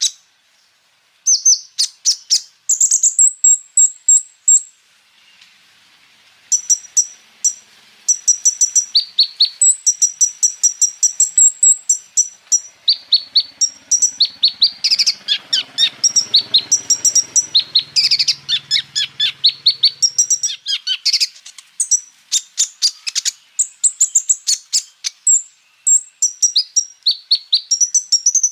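Kolibri ninja sunbird singing: rapid strings of high, sharp chirps and trills in quick bursts. There are two short pauses in the first few seconds, then near-continuous song. It is the fast 'roll tembak' song, filled with phrases copied from other birds.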